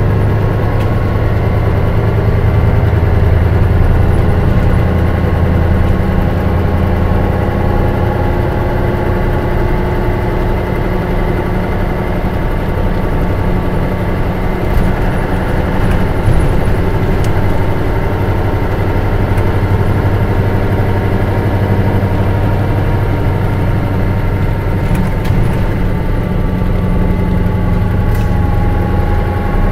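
Mitsubishi Fuso Aero Bus coach (KL-MS86MP, 2002) diesel engine running as the bus drives, heard from inside the bus: a steady low drone with a faint whine that drifts slightly in pitch, and a few light clicks.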